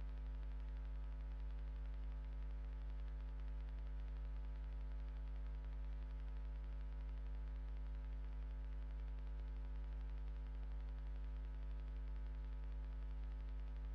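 Steady electrical hum, typical of mains interference, with a faint static hiss over it and no change throughout.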